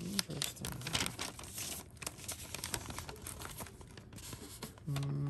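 Paper instruction manual being unfolded and turned over by hand, crinkling and rustling in quick irregular bursts, busiest in the first few seconds and thinning out after.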